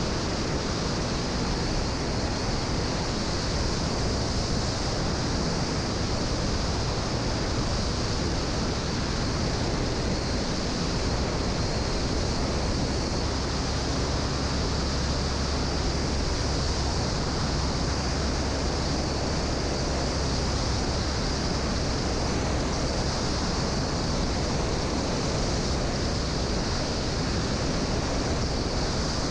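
Steady rush of wind over the microphone of a 1946 Piper J-3 Cub in flight, with the engine and propeller droning low underneath.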